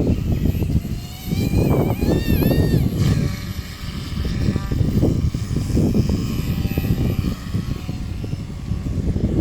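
Small electric RC helicopter (Mikado Logo 200) running, with uneven gusty rotor noise and a high whine that dips in pitch twice about two seconds in.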